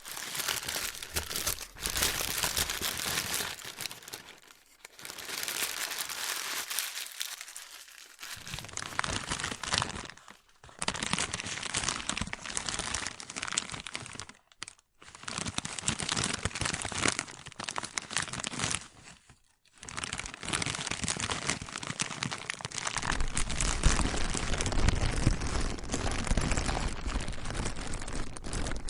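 Plastic being crinkled and crumpled, a dense crackling that stops briefly about four times. A low rumble sits under it for the last several seconds.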